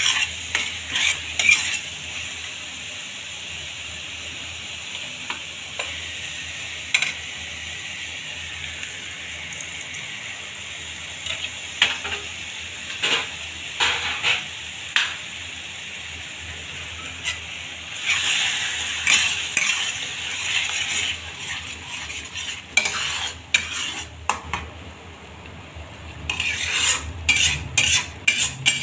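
Masala paste sizzling as it fries in oil in a pan, with a spatula stirring and scraping it in quick repeated strokes. Tomato purée is stirred into the paste, and there is a louder stretch of sizzling and scraping a little past the middle.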